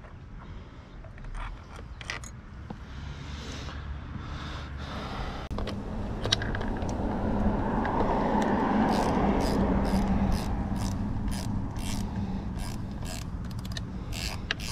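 Socket ratchet wrench clicking as the carburetor bolts on a Yamaha 8 hp four-stroke outboard are turned, with scattered clicks at first and then a steady run of about two clicks a second in the second half. A broad rushing noise with a low hum swells and fades in the middle.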